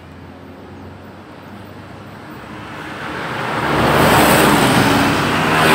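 A motor vehicle approaching and passing close by on the road. Its engine and tyre noise swell over about three seconds and are loudest near the end.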